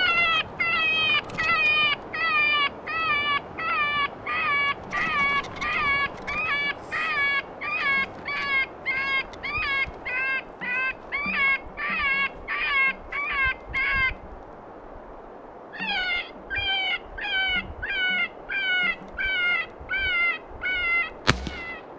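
A FoxPro electronic game caller playing a cottontail rabbit distress call: repeated high, squealing rabbit cries about twice a second. They pause briefly a little past halfway, then resume. Near the end a single sharp rifle shot cracks out as a gray fox is dropped.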